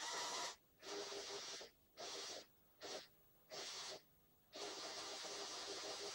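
Lego Technic excavator's motors and gears whirring in short runs, switched on and off: five brief runs, then a longer one of about three seconds near the end.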